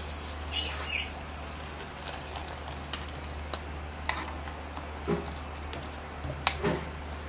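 A few short high squeaks in the first second, then scattered sharp clicks, over a steady low hum.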